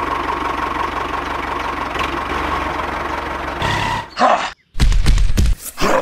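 Steady engine running of a miniature walking tractor, with a thin whine above the low rumble. About four seconds in it cuts off and is followed by a few short, loud, voice-like bursts that slide in pitch.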